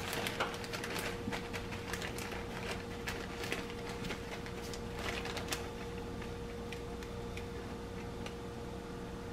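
Faint crinkling of a plastic zip-top bag and rustling of cornflake crumbs as coated chicken pieces are handled, the ticks thinning out after about five seconds, over a steady hum.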